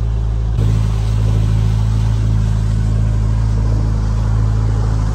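Boat's outboard motor running at an even, steady speed while being broken in, with a small step up in level about half a second in.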